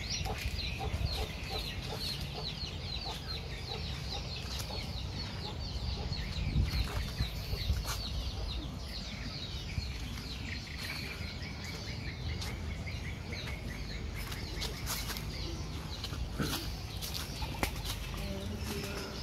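Free-range chickens clucking, with quick high chirps several times a second, most of them in the first half, over a steady low rumble.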